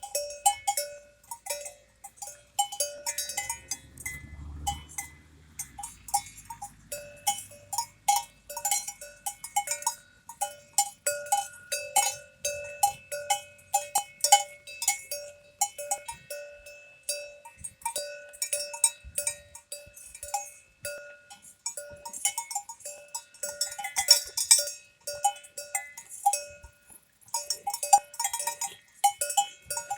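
Cowbells on cattle clanking irregularly, several strikes a second, each strike ringing briefly; they thin out for a moment near the end.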